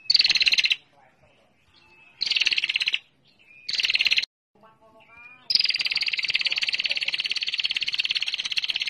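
Female prenjak (prinia) call: fast, buzzing trills of rapid high notes. There are three short bursts, then a long unbroken trill from about halfway in. Softer, lower pulsed notes sound in one of the gaps.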